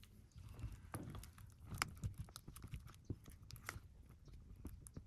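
Slime mixture being stirred as borax activator is worked in, giving faint, irregular sticky clicks and crackles.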